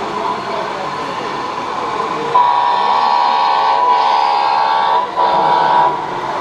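Truck air horn played through an RC model truck's sound-module speaker: one long blast of about two and a half seconds, a brief break, then a shorter blast.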